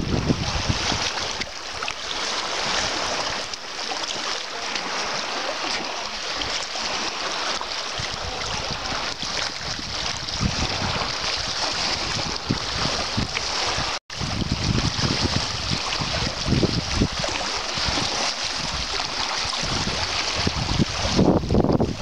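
Small sea waves lapping and washing over a rocky shore in a steady hiss, with wind buffeting the microphone in low gusty rumbles that grow stronger in the second half. There is a split-second break in the sound about two-thirds of the way through.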